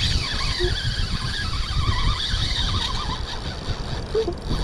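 Spinning reel's drag squealing in a wavering pitch as a large hooked fish pulls line off, with wind buffeting the microphone.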